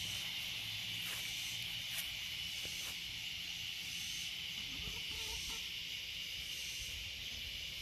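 Cicada chorus: a loud, steady, high-pitched buzz that holds unbroken throughout.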